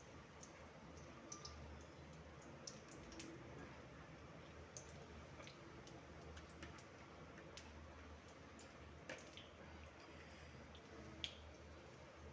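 Besan bari (gram-flour dumplings) deep-frying in oil in a kadhai: faint sizzling with scattered small pops and crackles, one louder pop about eleven seconds in.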